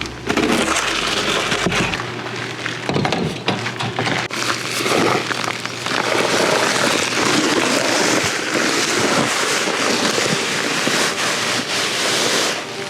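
Loose fill dirt being worked by hand, a continuous gritty scraping and crackling. A low hum stops about two seconds in.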